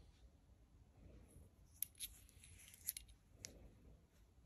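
Faint handling of a small hard-anodized metal motorcycle handlebar switch housing in the hand: four short sharp clicks in the middle, over a quiet background.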